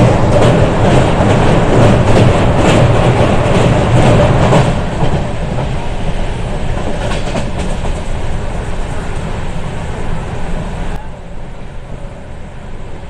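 Passenger train running over a steel truss river bridge, heard from inside the carriage at the window: a loud rumble with the wheels clacking over rail joints. The noise drops clearly about four and a half seconds in as the train comes off the bridge, and eases again near the end.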